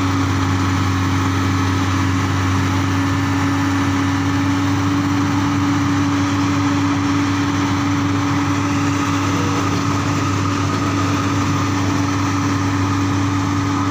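Komatsu PC crawler excavator's diesel engine running at a steady speed as the machine climbs onto a flatbed trailer, a constant low drone with an unchanging hum.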